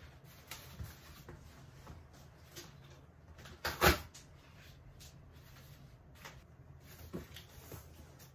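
Cardboard box being handled and opened: scattered rustles and light knocks of cardboard, with one sharp, loud knock a little before the middle.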